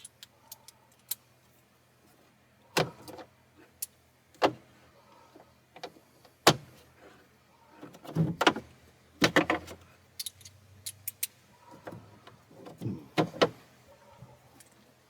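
Irregular clicks, knocks and short scrapes of hand tools and plastic parts as the air cleaner box is worked loose and lifted out of a 1993 Ford F-150's engine bay.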